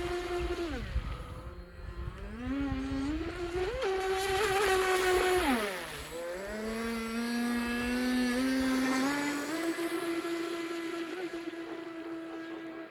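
Pro Boat Recoil 2 RC boat's electric motor and propeller whining as it runs, the pitch falling and climbing with the throttle several times. It is highest about four to five seconds in, drops sharply around six seconds, then rises again and holds steady for the last few seconds.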